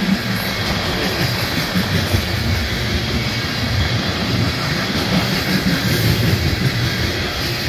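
A freight train's coal cars rolling past on steel wheels: a steady rumble of wheels on rail.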